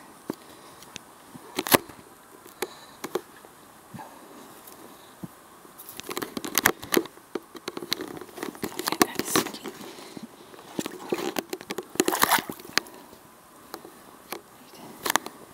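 Boots crunching through shallow snow and dry leaves in uneven footsteps, with scattered crackles and scrapes. The steps come in bunches, most of them in the middle of the stretch.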